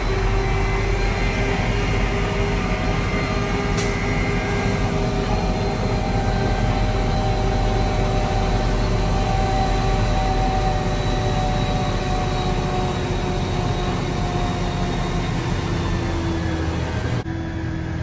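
Concrete mixer truck's diesel engine running steadily while driving, heard from inside the cab as a continuous low drone with slowly drifting pitch. A short click about four seconds in.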